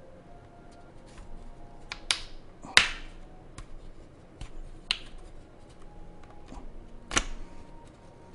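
Bottom cover of a Dell XPS 15 being pried off along its seam with a pry tool: the retaining clips let go in sharp clicks, four louder ones with the loudest a little under three seconds in, and small ticks and scrapes between.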